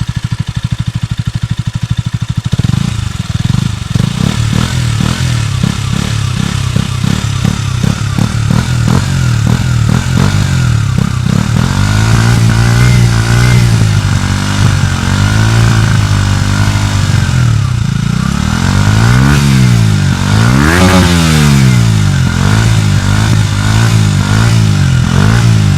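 KTM Duke 125's single-cylinder four-stroke engine through its original exhaust, idling with an uneven beat that then settles. It is blipped several times, the revs rising and falling back, with the biggest blips about three-quarters of the way through.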